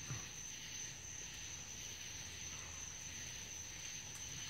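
Faint steady high-pitched trill of insects such as crickets, unbroken throughout, with a brief low sound at the very start.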